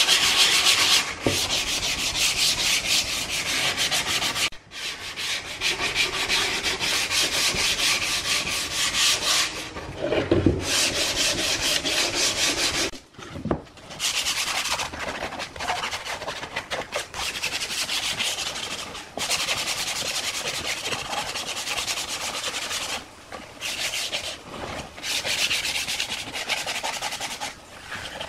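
Hand sanding a pine box with a sheet of 150-grit sandpaper: quick back-and-forth strokes of paper on wood, broken by a few brief pauses.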